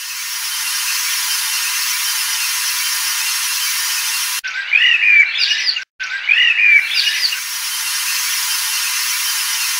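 A steady high hiss-like texture, broken about four and a half seconds in by two short stretches of chirping birdsong, each about a second and a half long, with a brief drop-out between them.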